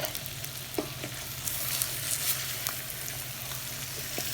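Chicken curry base of chicken pieces, onions and spices sizzling in a hot pan while being stirred, with a few light clicks of the spoon against the pan. The meat is searing.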